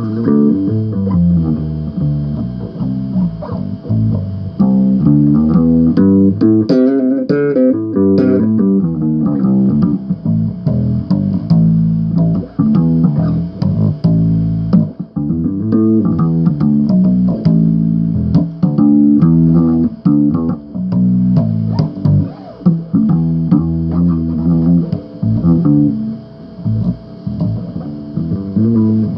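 Solo bass guitar riffing: plucked notes played continuously, with a flurry of higher, quicker notes about seven seconds in.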